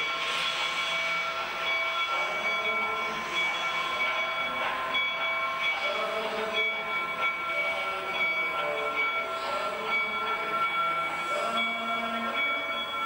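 Replica 19th-century steam locomotives at work, one drawing up with steam hissing, while a chord of steady high tones sounds throughout.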